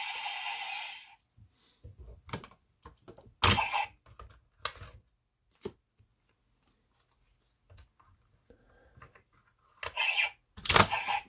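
Plastic clicks and knocks from handling a toy transformation belt and its cards, after a steady hissing sound stops about a second in; a louder cluster of clatter comes near the end.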